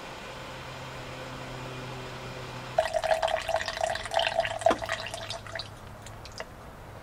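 Coffee poured from a stovetop moka pot into a stainless steel mug: a stream of liquid running and trickling into the metal mug, with a steady ringing note, starting suddenly about three seconds in and tailing off about three seconds later. Before it, only a faint low hum.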